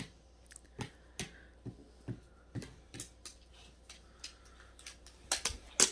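Light, irregular clicks and taps of hard plastic parts being handled and fitted while a robot vacuum is assembled, about two to three a second, with a few sharper knocks near the end.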